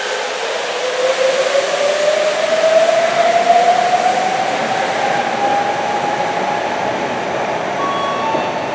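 Rubber-tyred Sapporo Subway train accelerating away from the platform: a motor whine rises steadily in pitch and levels off after about six seconds, over a steady rushing noise from the moving train.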